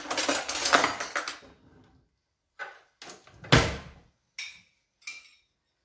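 A spoon clattering and scraping against a glass bowl and a cooking pan for about a second and a half, then a few separate knocks and clinks, the loudest about three and a half seconds in.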